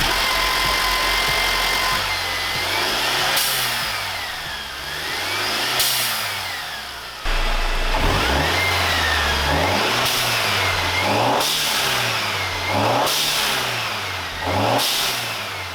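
Turbocharged four-cylinder engine of a Mercedes C250 being revved repeatedly, about seven times, its pitch rising and falling. Short bursts of hiss at several of the peaks are the newly fitted Go Fast Bits diverter valve venting boost.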